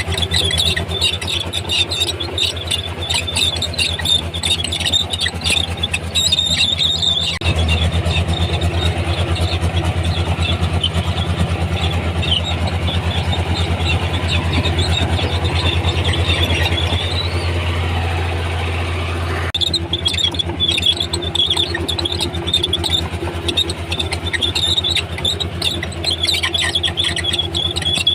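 Komatsu D31P crawler bulldozer working, its diesel engine running steadily under repeated high-pitched squeals from the steel tracks. From about seven seconds to about nineteen the engine is louder and steadier and the squealing mostly lets up, then the squeals return.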